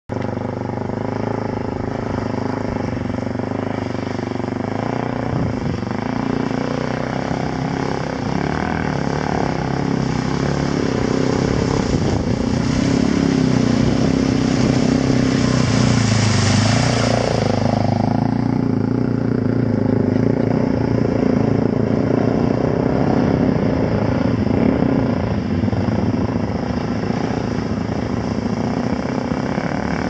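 Dirt bike engine running as the motorcycle rides through a shallow river, with a loud rush of spraying water as it passes close about halfway through, the engine pitch dropping as it goes by and moves away.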